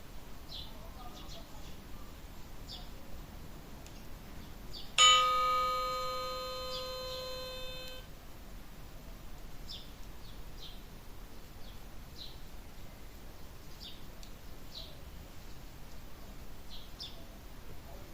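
A phone's ringtone sounding once: a single bell-like chime that starts about five seconds in, rings out and fades for about three seconds, then cuts off abruptly. Short high chirps, like birds, come and go throughout.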